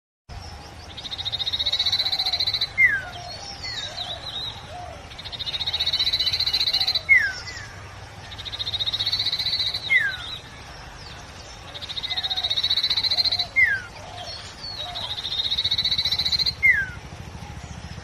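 A sirtu, the yellow iora kept as a songbird in Indonesia, singing its repeated phrase: a fast, high trill of about two seconds ending in one short downward-sliding whistle. The phrase comes five times, about every three and a half seconds.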